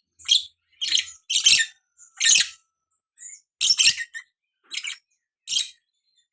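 Lovebird giving short, sharp, high chirps, about eight separate calls with brief pauses between them. It is a young bird that its keeper takes for a budding "konslet", the lovebird's long, continuous chattering song.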